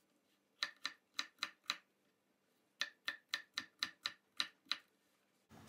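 Knife chopping a peeled potato on an end-grain wooden cutting board: crisp blade strikes in two quick runs of about four a second, with a pause of about a second between them.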